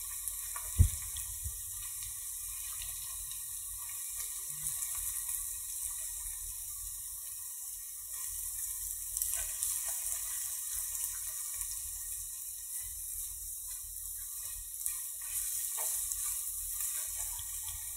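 Vegetables and egg frying in a pan, a steady sizzle, with one sharp knock about a second in.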